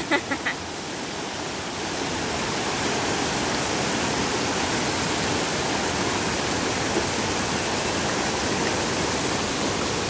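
Shallow waterfall cascade rushing steadily over smooth rock slabs.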